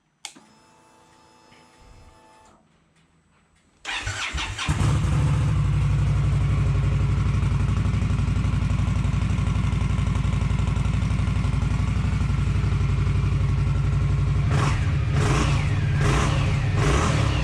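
A click and a faint hum, then a 2016 Indian Scout 60's V-twin is cranked and starts about four seconds in and settles into a steady idle. Its exhaust has the first set of muffler baffles drilled out. Near the end the throttle is blipped a few times in quick revs.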